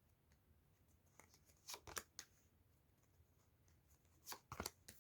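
Tarot cards being shuffled by hand: two short bursts of card rustle and snaps, about two seconds in and again near the end.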